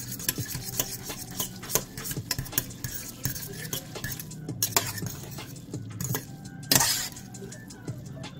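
Metal fork stirring sauced rice noodles in a stainless steel saucepan: quick irregular scrapes and clinks of metal on metal as the sauce is mixed through, with one louder scrape near the end.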